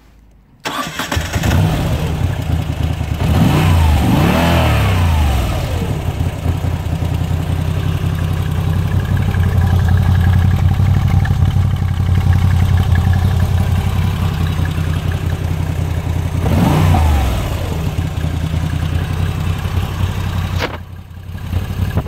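Moto Guzzi V85TT's air-cooled 853 cc transverse V-twin starting about half a second in and then idling. The revs are blipped up and down twice around 4 seconds, and once more about 17 seconds in.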